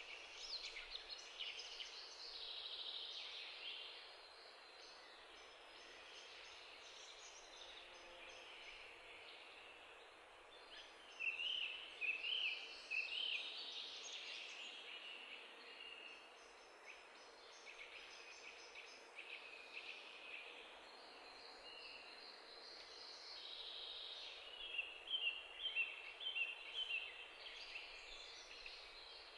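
Birds chirping and singing over a steady hiss: many short high chirps and trills, busiest about a third of the way in and again near the end.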